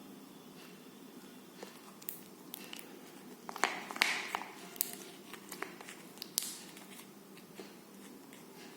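Slime being squeezed and poked by hand, giving a run of sharp clicks, pops and crackles that is loudest about four seconds in and thins out after about seven seconds.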